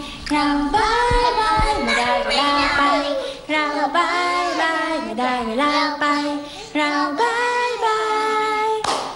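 A woman and a group of small children singing a children's song together.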